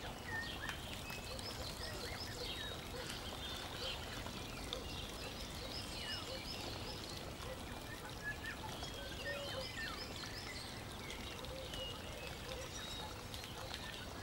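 Birds chirping over a steady rushing hiss like running water, with a group of chirps coming back about every four and a half seconds.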